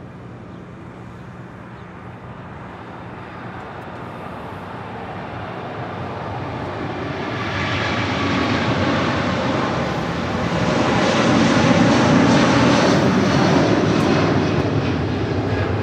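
Airbus A380's four turbofan engines at takeoff power, a steady roar that builds as the airliner rolls, lifts off and climbs past, loudest a few seconds after liftoff.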